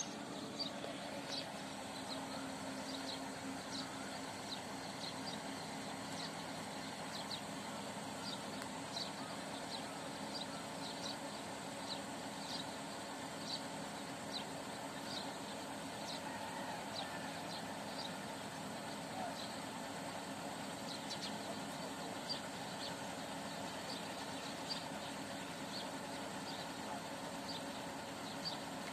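Truck-mounted borewell drilling rig running with a steady drone, with a short high tick repeating roughly once or twice a second.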